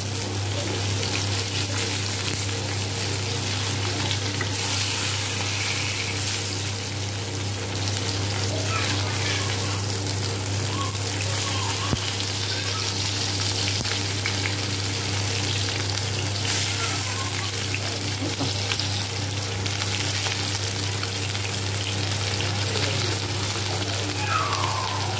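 Whole Indian mackerel (bangda), coated in semolina, rice flour and chilli masala, shallow-frying in a little oil in a pan, with a steady sizzle as the fish are turned. The sizzle is louder for a stretch in the middle, over a low steady hum.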